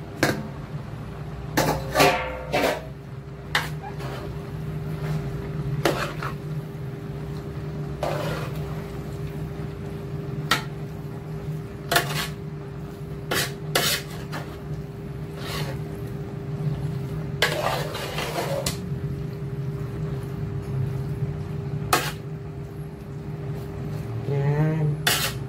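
Metal spoon knocking and scraping against a large aluminium pot as chopped pork intestines are stirred, with a metal bowl clanking on the pot as the meat is tipped in at the start. Irregular clinks over a steady low hum.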